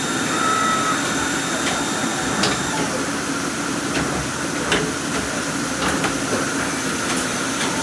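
Mazak Integrex 200-4S CNC mill-turn lathe running, a steady mechanical hum and hiss as its milling head and axes move, with a few sharp clicks. A faint high whine stops about a third of the way through.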